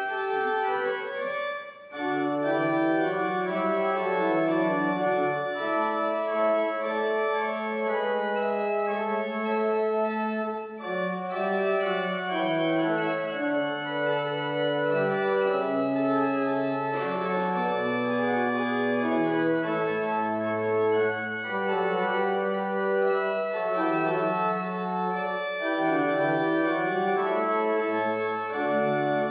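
Church pipe organ playing a slow piece in held chords over a bass line that moves note by note, with a short break about two seconds in.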